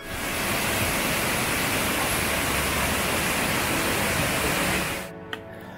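Spring-fed waterfall: white water pouring hard down a rocky cascade, a loud, steady rush of water that cuts off suddenly about five seconds in.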